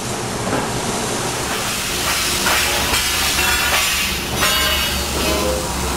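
Kent KGS-63WM1 surface grinder running under power: a steady hiss over a low, even hum.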